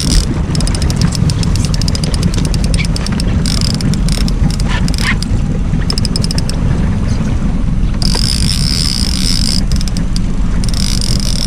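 Fishing boat's motor running steadily while trolling, with wind rumbling on the microphone. Runs of fast clicks come through from about half a second to four seconds in and again near the end.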